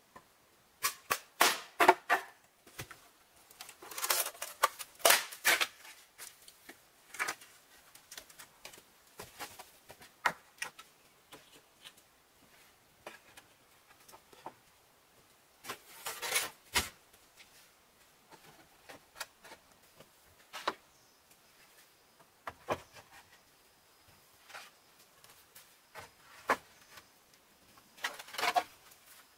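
Hollow bamboo poles and split bamboo halves knocking and clattering together as they are handled and laid down, in scattered clusters of sharp clacks with quiet gaps between.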